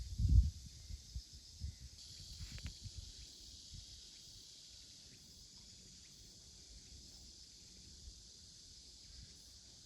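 Insects chirring in a steady high drone, with several low thumps in the first few seconds, the loudest right at the start.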